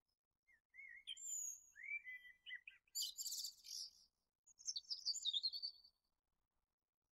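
A songbird singing one short bout: a few whistled notes, then a fast, very high trill, then a high twittering phrase.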